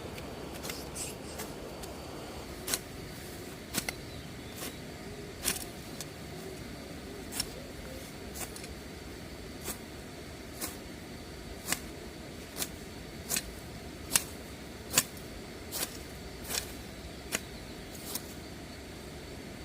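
Repeated sharp chopping strikes of a blade, about twenty, irregular at first and then nearly one a second, over a steady low background noise.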